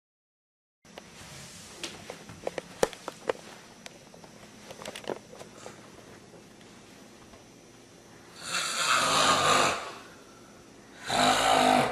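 A person snoring: two long, loud snores, the first about eight seconds in and the second near the end. Before them come faint small clicks and knocks.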